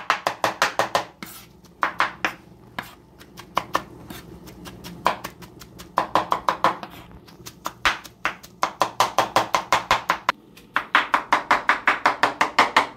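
Chef's knife chopping cilantro and tomato fine on a wooden cutting board: rapid runs of hard knocks against the board, about five or six a second, in several bursts with short pauses. The knife is struck down hard on the board on purpose, which is how she chops cilantro.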